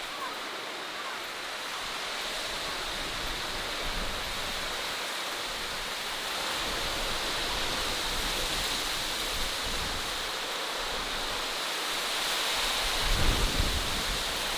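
Steady rushing outdoor ambience with no distinct events. Low, uneven rumbling comes in near the end.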